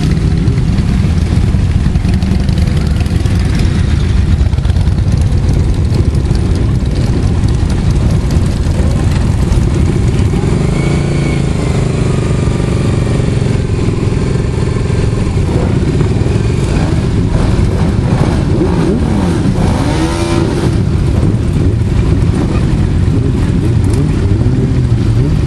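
Many motorcycle engines running together as a column of bikes moves off, a steady low rumble with single bikes revving up and down as they pass close, about eleven seconds in and again around twenty seconds in.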